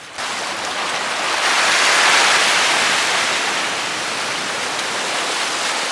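Sea surf washing over shore rocks: a steady rush of breaking waves that swells about two seconds in.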